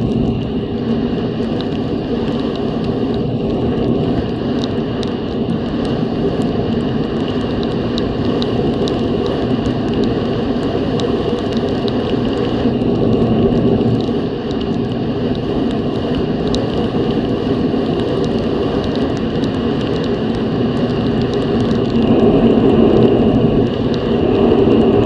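Snowmobile engine running steadily while riding along the trail, growing louder for a few seconds near the end.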